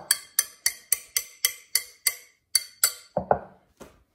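A metal whisk knocking against the rim of a glass mixing bowl, about ten sharp taps at roughly four a second with the glass ringing briefly after each. This is the whisk being tapped clean of thick batter. A few duller knocks follow near the end.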